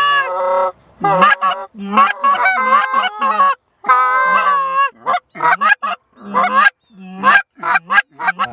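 Loud goose honking: a rapid, irregular run of short honks, many breaking from a low note to a higher one, with brief gaps between them.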